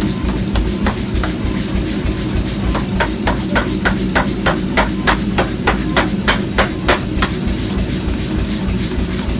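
Rapid run of hammer blows on iron during forging, about four or five strikes a second for roughly four seconds, after a couple of single blows, over a steady low machine hum.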